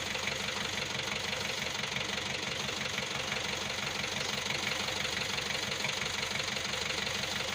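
Hindustan Ambassador Classic's 1500 cc four-cylinder BMC diesel engine idling with a steady rhythmic beat. This is the strange noise that the owner traced to a rusted, cracked radiator bracket and front panel.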